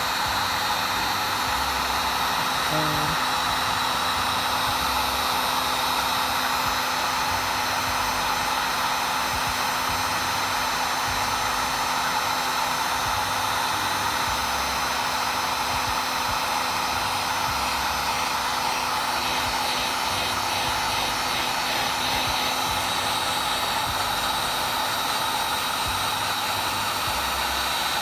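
Electric heat gun blowing steadily with a faint motor hum, shrinking heat-shrink tubing over a spliced wire.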